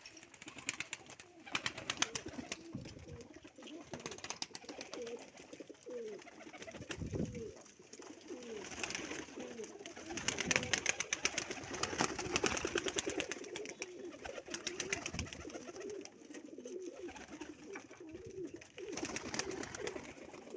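A flock of domestic pigeons cooing over and over, many low rolling coos overlapping one another, with scattered sharp clicks among them.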